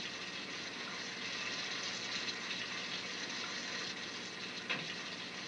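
Fountain water splashing: a steady rushing spray, with a short sharp knock near the end.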